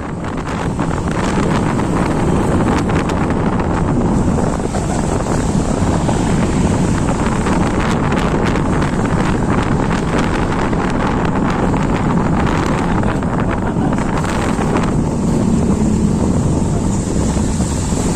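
Heavy rain pouring down steadily, a dense patter of drops with low rumbling wind noise on the microphone.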